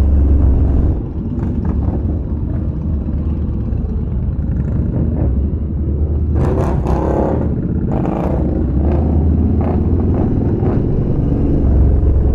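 Yamaha Bolt's air-cooled 942 cc V-twin running at low riding speed, a steady low rumble, with a brief rush of noise about six to seven seconds in.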